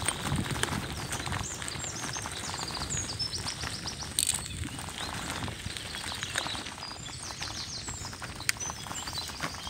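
Several songbirds singing in the woods with repeated chirps and trills, over the steady rumble and crackle of bicycle tyres rolling on a rough forest road. A few sharp clicks, probably from the bike, stand out about four and eight and a half seconds in.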